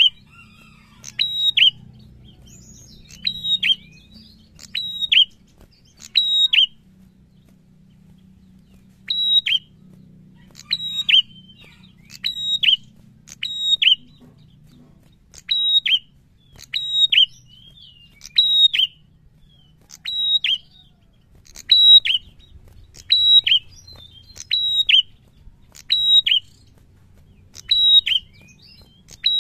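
A caged prenjak singing loud, sharp chirps: pairs of quick high notes that drop in pitch, repeated about every second and a half, with a short pause after about seven seconds.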